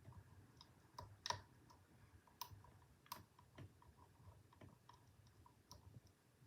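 Faint, irregular clicks of a hook pick and tension wrench working the pin stack of a Federal 95 padlock, with a few sharper clicks as the pins are lifted and set.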